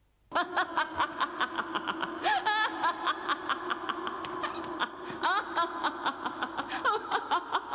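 A woman's high, cackling laugh in rapid repeated bursts, several a second, starting suddenly after a brief silence, over a steady low tone.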